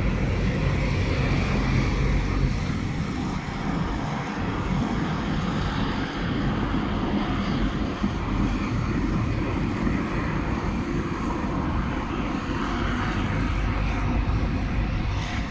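Blizzard wind blowing, with a rumble of wind buffeting the microphone.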